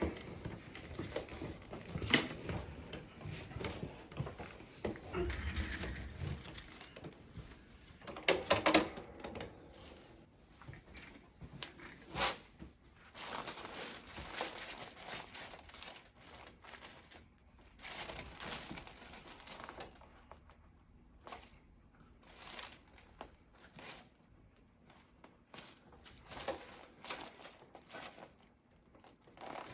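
Rustling and crinkling with scattered knocks and clicks as a patient turns over and is repositioned on a chiropractic treatment table. There is a loud thump about 8 to 9 seconds in and a sharp knock about 12 seconds in.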